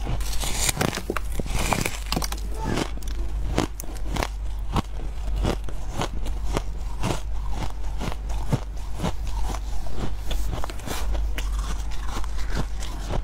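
Chunk of fluffy freezer frost being bitten and chewed close to the microphone: a steady run of crisp, squeaky crunches, a few each second.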